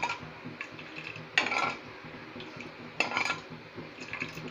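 Metal ladle stirring sugar and water in a tawa, scraping against the pan's bottom as the sugar is dissolved for syrup. Two louder scrapes come about a second and a half and three seconds in, with lighter strokes between.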